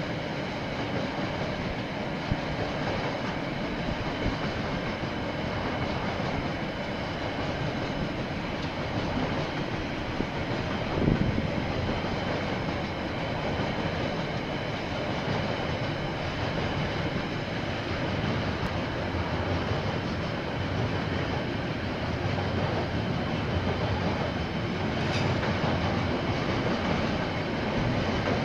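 Freight train of container wagons rolling past, a steady rumble of steel wheels on the rails, with one short knock about eleven seconds in.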